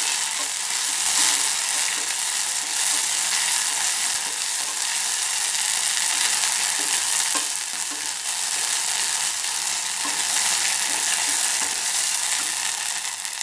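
Shallots, whole spices and ginger-garlic paste sizzling in hot sesame oil in a steel pressure cooker while a wooden spatula stirs them: a steady frying hiss with faint scraping ticks from the stirring.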